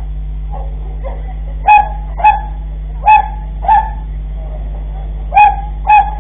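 A dog barking: six short barks in pairs, starting a little under two seconds in, over a steady low hum.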